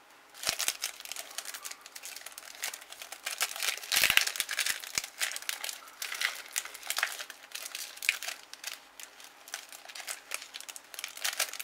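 Foil wrapper of a Topps Match Attax trading-card pack crinkling and tearing as gloved hands work it open: a continuous crackling rustle, loudest about four seconds in.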